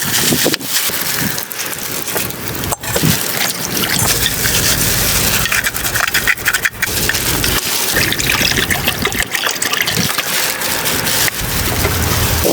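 Strong wind buffeting the microphone: a loud, steady rushing noise with stretches of low rumble, broken by a few sharp knocks.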